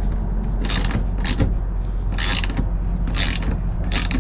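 Hand ratchet with a socket clicking in short back-strokes, about one run a second, working the underbody panel bolts of a Toyota 4Runner, over a steady low hum.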